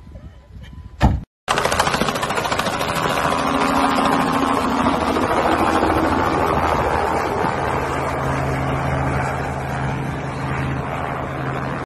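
Jeep Wrangler engine running hard as it is driven fast down a dirt track, with the rush of tyres churning dirt. Before this starts there is a short loud knock about a second in.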